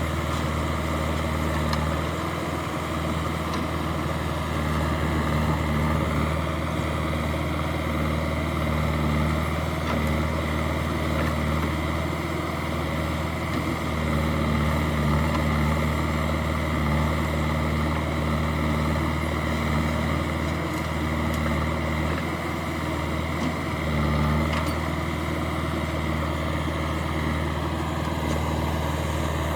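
Heavy diesel engine running steadily, its low hum swelling and easing every few seconds as the load changes.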